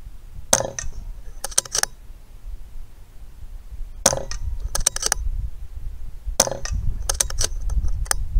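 Three shots from a Daystate Delta Wolf PCP air rifle, about 0.5 s, 4 s and 6.5 s in, each followed about a second later by a quick run of metallic clicks as the action is cycled to load the next pellet. A low wind rumble on the microphone runs underneath and grows toward the end.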